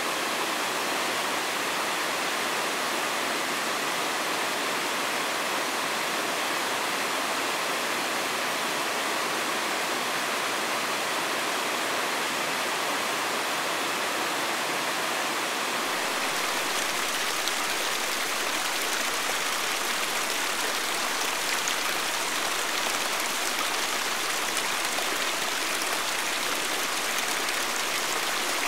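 Steady rushing of a mountain stream, an even wash of water noise without a break.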